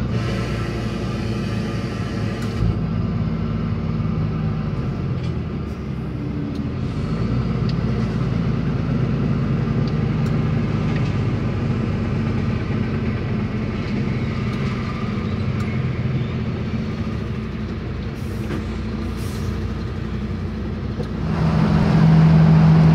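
Mercedes-Benz Axor 1933 tractor unit's six-cylinder diesel engine running steadily under way, heard from inside the cab together with road noise. About 21 seconds in the engine hum gets suddenly louder.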